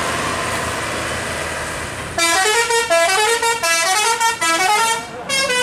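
Primajasa bus passing with its engine and tyres running, then, about two seconds in, its multi-tone "telolet" horn plays a quick tune of rapidly changing notes for about three seconds, ending with one short extra blast near the end.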